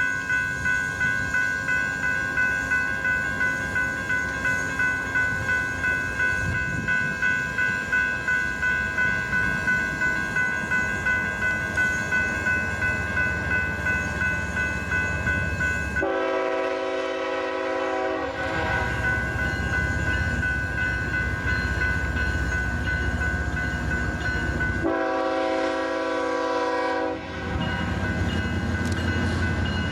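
A railroad grade-crossing bell rings rapidly and steadily. About 16 s in, a diesel locomotive's air horn sounds a chord for about three seconds, then a second blast of about two seconds near 25 s, over the growing rumble of the approaching train.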